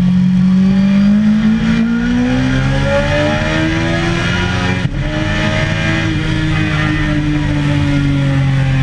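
Sport motorcycle engine pulling hard under acceleration, its revs climbing steadily in second gear. About five seconds in there is a quick upshift to third, after which the revs hold and ease off slightly, with wind rushing past.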